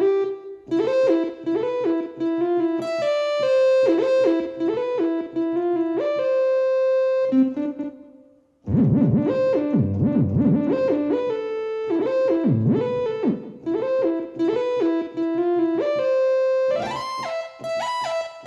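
Yamaha MODX6 synthesizer playing a short repeated melodic phrase on a synth preset. It stops briefly about eight seconds in, then the phrase comes back with deeper bass notes added under it.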